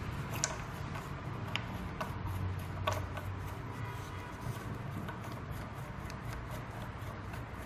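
Lock nut being screwed tight onto a rotary evaporator's motor by hand: a few small clicks and some rubbing over a steady low hum.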